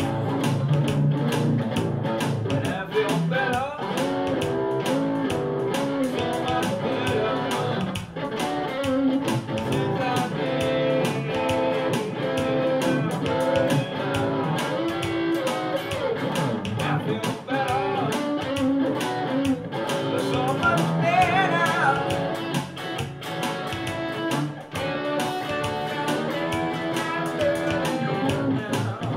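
Electric guitar playing an instrumental gospel shuffle over a steady percussive beat.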